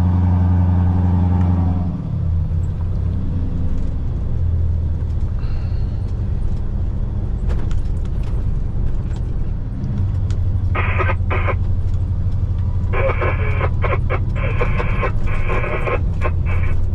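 Scania V8 diesel engine of a loaded logging truck running steadily on the move, its note easing off about two seconds in and then holding.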